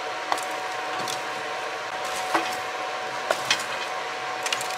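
Pieces of hardwood firewood knocking against the steel firebox of a 55-gallon-drum evaporator as they are fed in, a handful of sharp knocks over a steady hiss with a faint steady tone.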